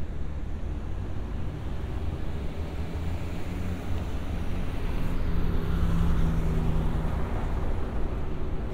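A city bus passing at low speed. Its engine rumble and a steady hum build to a peak about six seconds in, then fade, over the general street rumble.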